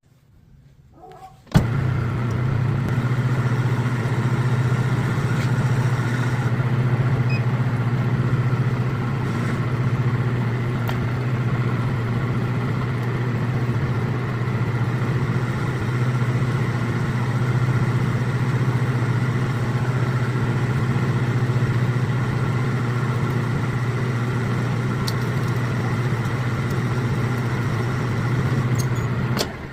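Metal lathe motor switched on with a click about a second and a half in, then running with a steady hum while a rifle barrel is threaded, sped up to double speed; it dies away near the end.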